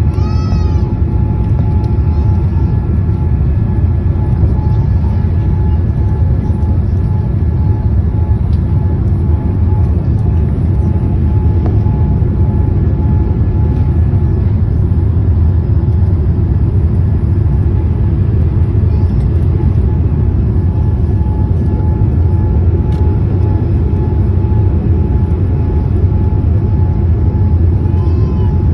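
Cabin noise of a Boeing 787 Dreamliner airliner during takeoff: a loud, steady rumble of the engines and airflow, with a faint steady whine above it.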